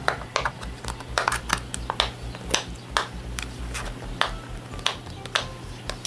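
Rubber bubbles of a square pop-it fidget toy being pressed one at a time with the fingertips, giving about a dozen sharp pops at an uneven pace, roughly two a second.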